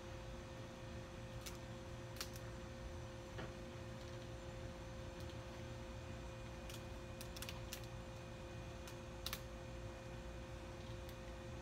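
Rubber bands being stretched and snapped one at a time onto a watermelon. They give sharp, irregular snaps a second or more apart, the strongest about nine seconds in. A faint steady hum runs underneath.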